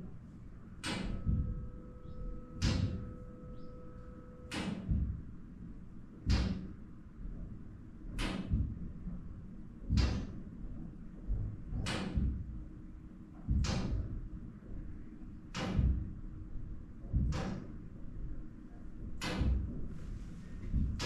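A sharp knock with a low thud under it, repeating evenly about once every two seconds. A faint steady two-note tone sounds briefly in the first few seconds.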